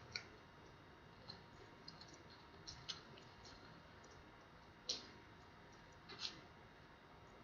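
Faint, scattered small clicks and taps, about eight over several seconds, the loudest about five seconds in and another just after six: small plastic and metal parts of a Kurio 7 tablet being handled during an LCD screen replacement.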